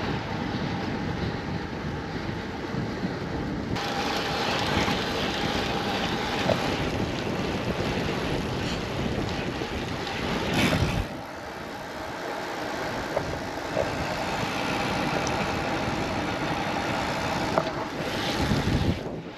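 Wind rushing over the microphone and tyre noise from a road bicycle rolling along a trail at speed; the low rumble drops away about eleven seconds in.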